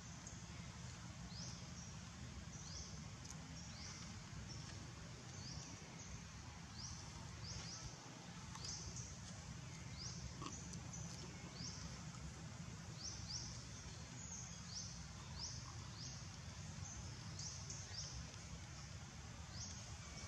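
Faint outdoor forest ambience: a steady low rumble with a thin, high, upward-sweeping chirp repeated roughly once or twice a second.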